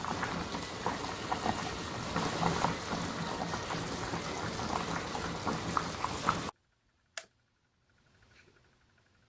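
Food cooking on the stove: a steady hiss with many small pops, cutting off abruptly about six and a half seconds in, followed by a single click.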